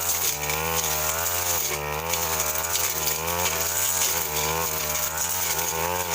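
Stihl FR 3001 backpack brush cutter's two-stroke engine running under load while its blade cuts through scrub, its pitch rising and falling as the blade meets the brush.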